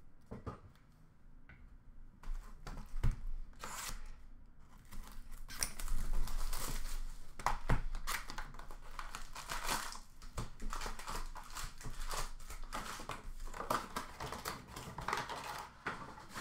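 An Upper Deck hockey card box being torn open and its foil-wrapped card packs pulled out and handled: tearing cardboard, rustling and crinkling wrappers and a few light knocks. The rustling picks up about two seconds in and continues irregularly.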